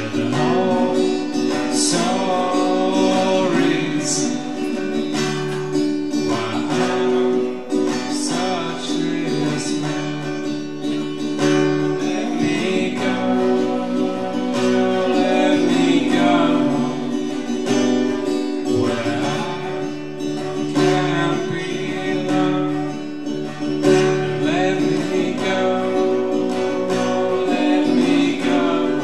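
Acoustic guitar strummed and picked, with a voice singing over it.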